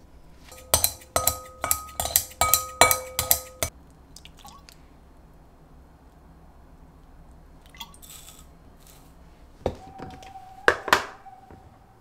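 Kitchenware clinking: a quick run of about nine sharp knocks, each ringing briefly, in the first few seconds, then two or three more ringing knocks near the end.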